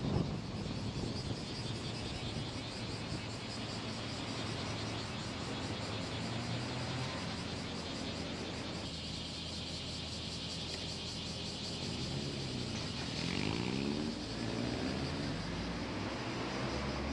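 A car being driven, with steady tyre and road noise under a low engine note. About three-quarters of the way through, the engine note rises briefly as the car speeds up.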